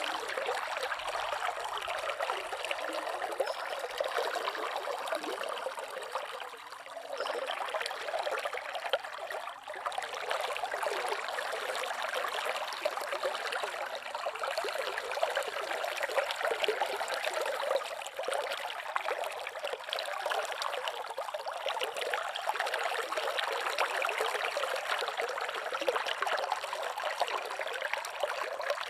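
Slow river water murmuring steadily, briefly softer about six and nine seconds in.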